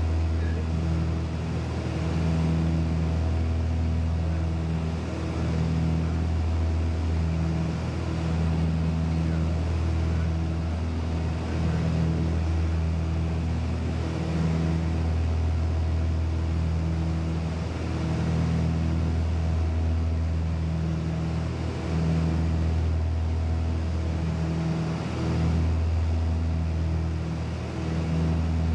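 Aircraft engine droning steadily, heard from on board: a low hum with a few fixed tones above it that swell and fade in a slow pulsing beat every couple of seconds.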